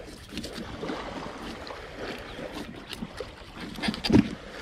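Fillet knife slicing through a gold spot sweetlip on a plastic cutting board, making small scraping and crackling cuts, with one short louder thump a little after four seconds in. Small waves wash at the shore behind.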